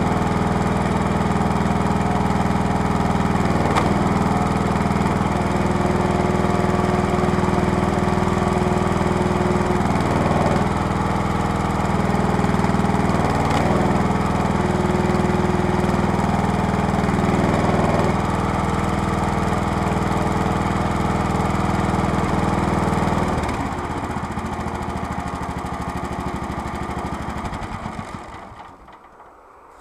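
A small engine drives the hydraulic pump of a homemade log splitter. It runs steadily, its note wavering briefly a few times as logs are split. About three-quarters through it drops to a lower, rougher running, and near the end it winds down to a stop.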